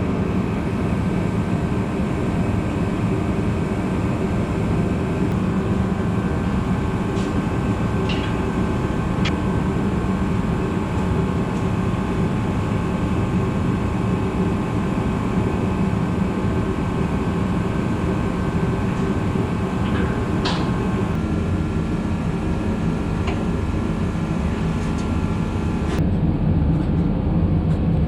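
Steady rumble of a vehicle driving, heard from inside, with a few light clicks and a slight change in tone twice near the end.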